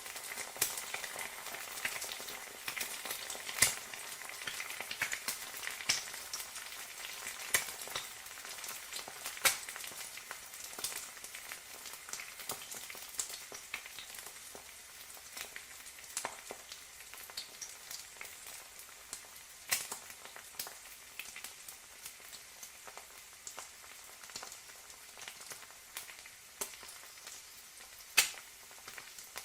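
An egg frying in hot oil in a pan: a steady sizzle with scattered sharp pops and crackles, easing off gradually.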